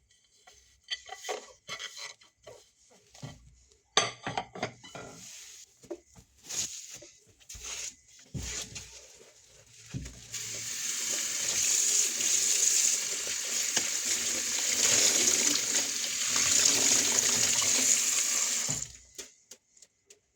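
Clinks and knocks of washing up, then a kitchen tap running steadily into the sink for about eight seconds before it is shut off.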